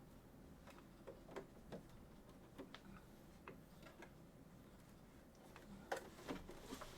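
Faint, irregular clicks and light taps of small objects being handled over quiet room tone, with a slightly louder cluster about six seconds in.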